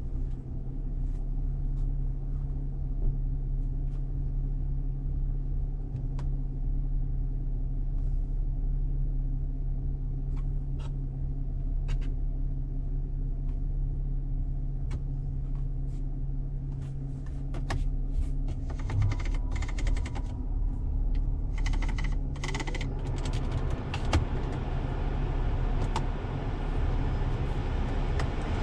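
Cab-interior sound of a 2019 Chevrolet Colorado's 3.6 L V6 gasoline engine running at low, steady revs while the 4WD pickup drives off-road. Scattered clicks and knocks come from the body and suspension, and louder rattling, scraping stretches of tyre and body noise come about two-thirds of the way through.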